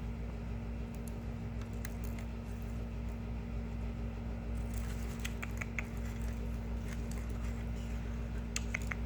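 Scattered light clicks and taps of small hard objects, in a quick cluster about five seconds in and another near the end, over a steady low electrical hum.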